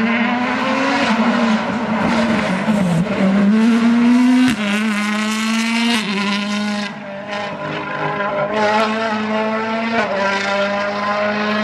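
World Rally Car engines (turbocharged 1.6-litre four-cylinders) revving hard under acceleration, the pitch climbing and dropping sharply with each gear change, with a sharp crack about four and a half seconds in.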